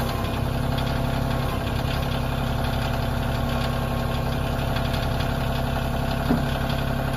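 Kioti CK2610 compact tractor's three-cylinder diesel engine idling steadily, with one brief sharp click about six seconds in.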